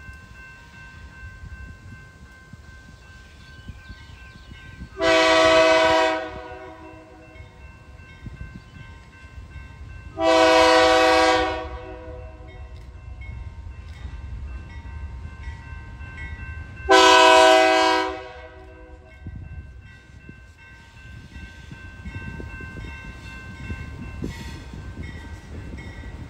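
Diesel freight locomotive's multi-chime air horn sounding three blasts, each about a second and a half long and several seconds apart. Between the blasts the locomotive's low rumble runs on.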